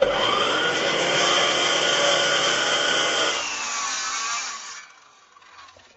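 A woodworking power tool running and cutting wood, starting suddenly. After about three seconds the cut ends and the motor winds down, its pitch falling until it fades out about five seconds in.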